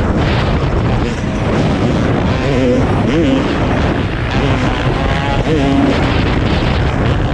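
Dirt bike engine running under load, revving up and easing off a few times, with wind rushing over the rider-mounted microphone.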